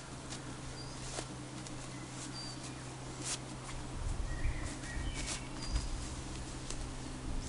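Short bird chirps over outdoor ambience, with soft rustles and light knocks as a small stuff sack is handled and opened. Low rumbling comes in from about four seconds in.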